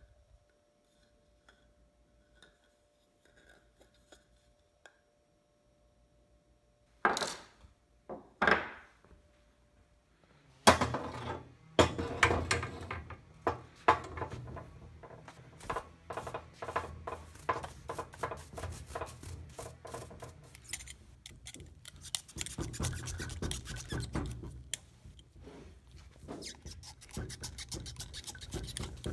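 Near silence at first, then two short loud rushing noises. After that comes a long, dense run of irregular metallic clicking, knocking and scraping as a coil-spring strut assembly clamped in a bench vise is handled and worked on.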